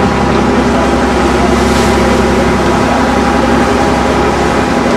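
Ferry boat's engine running steadily, a loud even drone with a constant hum.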